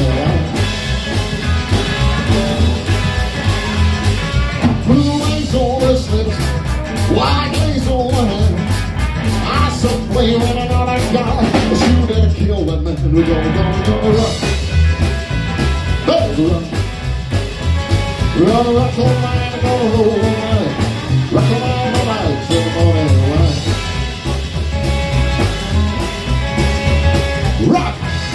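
Live rock and roll band playing an instrumental stretch between verses: electric guitar over upright double bass and drums, with a steady driving beat.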